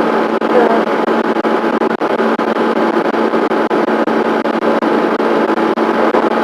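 Steady mechanical hum and hiss with a constant low tone and faint crackling clicks.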